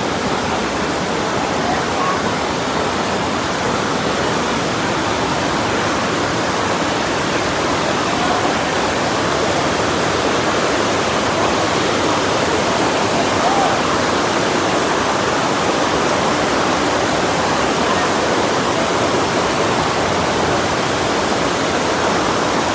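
Creek water rushing and foaming over a rocky bed inside an arched tunnel: a steady, unbroken rush.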